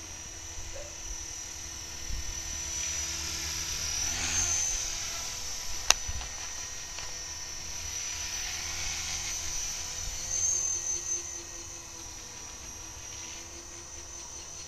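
Radio-controlled model helicopter in flight: a steady high motor whine over the rotor's rumble, rising in pitch and swelling louder twice as the helicopter works low and climbs again. A single sharp click about six seconds in.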